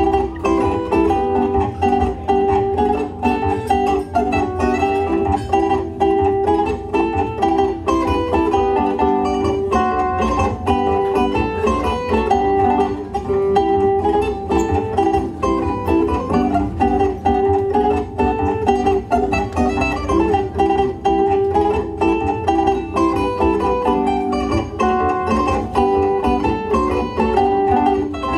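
Zither being played: plucked metal strings in a continuous tune, quick ringing notes over lower sustained notes.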